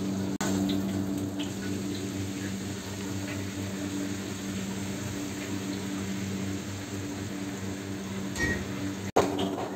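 Vegetables stir-frying in a steel wok: a steady sizzle over a constant low hum, with a sharp click about nine seconds in.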